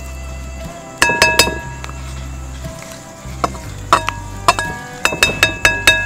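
Kitchen utensil clinking against a dish that rings after each hit. There are a few strikes about a second in, then a quicker run of strikes over the last couple of seconds.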